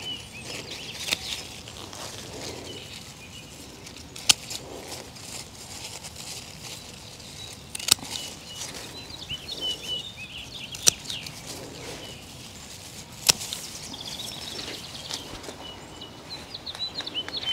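Hand pruners snipping salvia stems while deadheading spent flower stalks: about five sharp clicks a few seconds apart. Birds chirp in the background.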